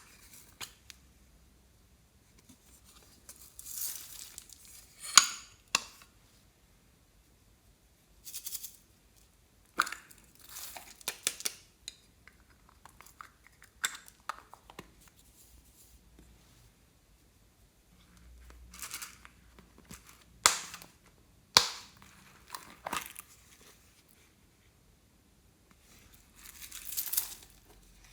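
Hands working clear slime and the things being mixed into it: scattered crinkling, tearing and clicking handling noises, in short bursts of a second or so with quiet gaps between.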